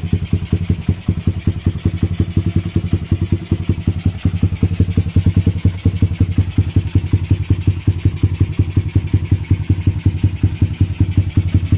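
Suzuki Satria FU single-cylinder four-stroke engine, freshly bored up to 170cc with a Moto1 66 mm cylinder block, idling steadily with a fast, even pulse on its first run after the rebuild.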